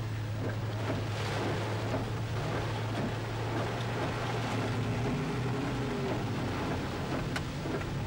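Typhoon wind and heavy rain beating on a moving vehicle, heard from inside the cab, over a steady low hum. An oncoming truck's engine drones briefly about halfway through as it passes, and there is a single sharp click near the end.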